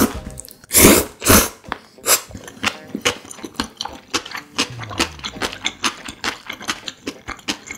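Close-miked eating of jjapaguri noodles with sirloin steak: two loud wet noodle slurps about a second in, then steady wet chewing with quick, irregular mouth clicks and smacks.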